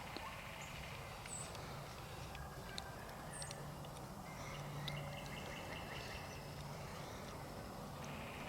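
Faint wild turkey calls from a flock close by: scattered short, quiet notes over woodland background, with a faint low drone in the middle.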